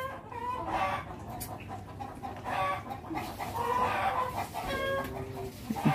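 Domestic fowl clucking: short pitched calls repeating every second or so.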